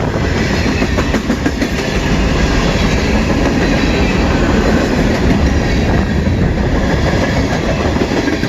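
CN freight train rolling past at close range, its car wheels clattering over the rail joints with a steady rumble.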